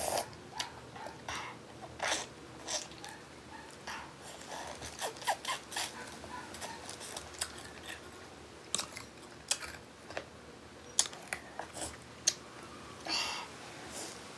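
A person biting and chewing food: irregular short crunches and clicks, several close together at times.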